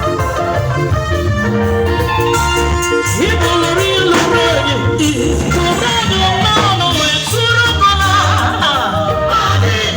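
A live band plays upbeat music with singing voices over it and a prominent bass guitar line.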